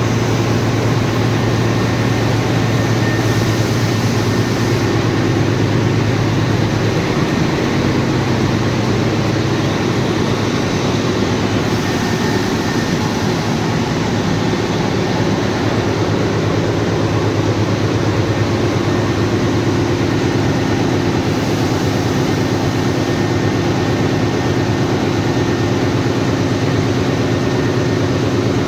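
Railway locomotive running steadily: a loud, unbroken mechanical drone with a deep hum and a few steady higher tones.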